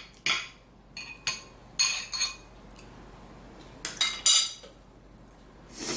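Cutlery clinking and scraping against a dish in several short, irregularly spaced strikes while food is cut up in it.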